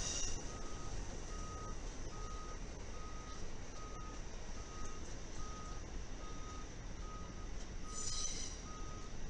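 Amtrak passenger cars rolling slowly past with a steady rumble and hiss. Over it an electronic warning beep repeats at one pitch, a little more than once a second. A short high-pitched hiss comes about eight seconds in.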